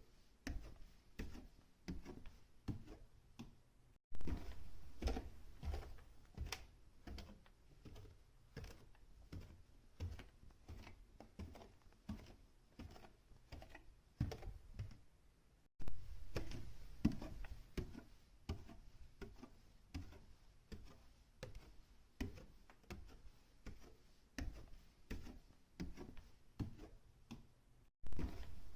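Footsteps climbing and descending a staircase indoors, a regular tread of about two steps a second. The run is made of several takes joined together, with a sharp break about 4 seconds in, another near the middle and another near the end.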